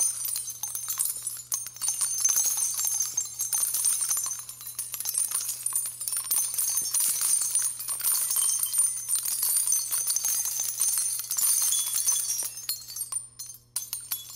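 Background music carried by bright, rapid jingling bells, fading out near the end.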